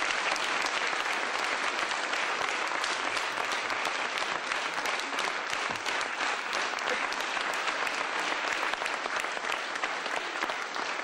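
Audience applauding: many hands clapping steadily in a dense patter, easing slightly near the end.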